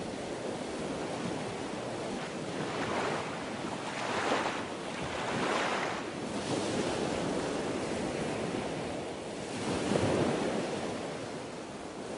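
Wind blowing across an action camera's microphone: a steady rushing noise that swells in gusts several times.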